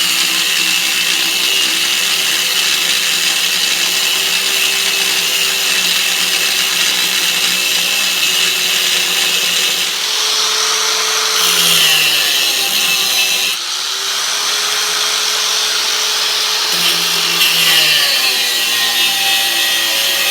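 4.5-inch angle grinder with a thin cut-off wheel cutting a notch into a metal bar: a steady motor whine over a loud high grinding hiss, the motor pitch sagging and recovering a few times as the wheel bites under load.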